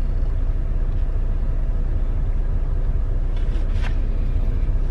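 Low, steady rumble of a semi truck's diesel engine idling, heard from inside the cab.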